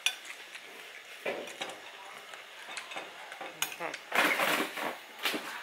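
Eating at a meal: scattered clicks of utensils and dishes with handling and chewing noises, and a louder crackly burst of noise about four seconds in.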